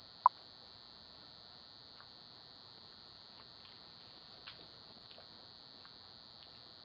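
Low steady electronic hiss of a doorbell camera's microphone. One short, sharp chirp about a third of a second in, and a few faint ticks after it.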